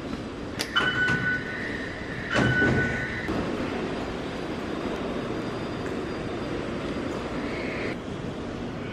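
Metro fare gate beeping twice as a plastic token is tapped on its reader, with a thud under the second beep. Then the steady hum and hiss of an underground station.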